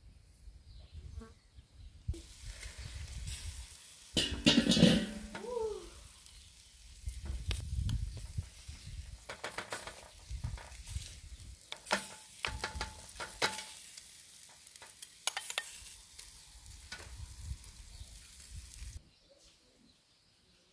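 Lamb chops sizzling on the wire grate of a charcoal kettle grill, with sharp metallic clicks and scrapes from a spoon against the grate and a loud clatter about four seconds in. The sizzle stops abruptly near the end.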